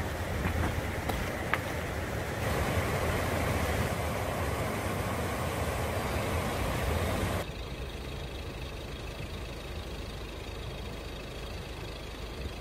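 A low steady rumble, then about five seconds of water rushing over a low river weir, then a quieter low rumble after it cuts away.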